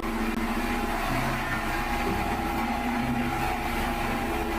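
Steady engine running, a hum under a hiss, that starts abruptly and holds level throughout.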